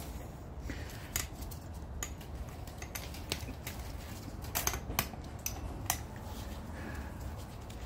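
Light metallic clicks and clinks of steel drum-brake hardware on a 1993 Chevy Silverado rear brake, as the return spring and self-adjuster are hooked and worked into place by hand. There are a handful of sharp ticks, the loudest near the middle, over a low steady rumble.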